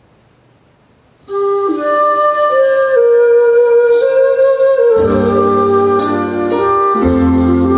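Recorded song intro played back through a home-built loudspeaker. After about a second of faint hiss, a melody line starts suddenly, and about five seconds in deep bass and a fuller band join it.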